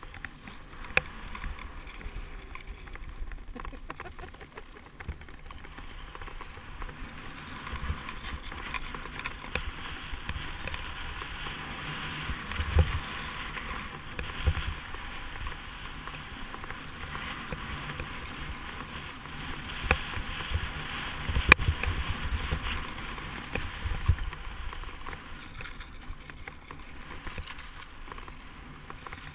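Monoski sit-ski sliding down a groomed slope: a steady hiss and scrape of the ski on hard-packed snow, louder through the middle, with low rumbles and a few sharp knocks.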